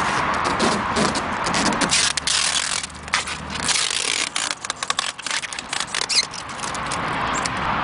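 Steady road noise of a moving vehicle, with a run of irregular sharp clicks and rattles through the middle.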